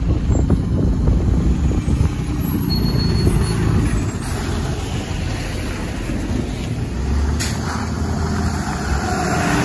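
Diesel engines of IC CE school buses running as the buses pull away and drive past close by, a dense low rumble. A short sharp click about seven seconds in.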